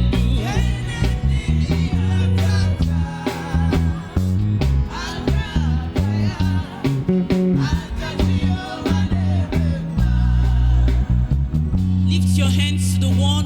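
Gospel worship music with a steady bass line, guitar and drums, and some singing.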